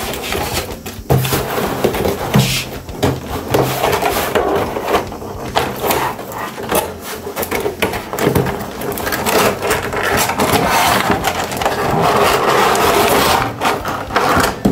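Cardboard box and its plastic insert tray being opened and handled: rustling and scraping of cardboard with scattered knocks and clicks of plastic.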